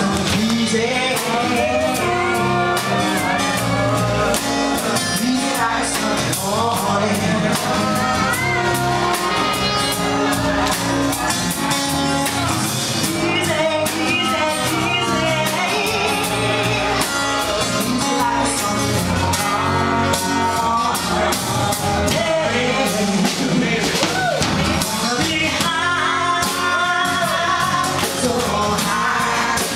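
A woman singing lead into a microphone over a live band of drum kit and guitars, playing a slow soul ballad.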